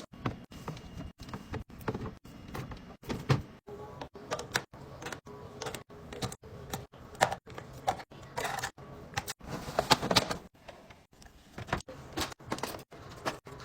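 Household items being handled and put away in a fridge and pantry: a quick, irregular run of clicks, taps and knocks of containers and lids, with some rustling of packaging. The sound is chopped by frequent abrupt cuts.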